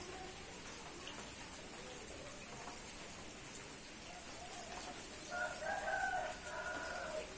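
Steady rain falling, with a rooster crowing once, about two seconds long, starting about five seconds in.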